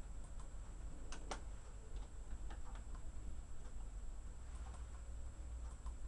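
Faint, irregular small clicks over a steady low hum, with two sharper clicks close together about a second in.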